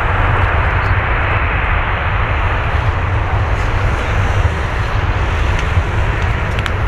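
Airbus A330-300 airliner's twin Pratt & Whitney PW4000 jet engines running, a loud, steady rumble with a broad roar and no change in pitch.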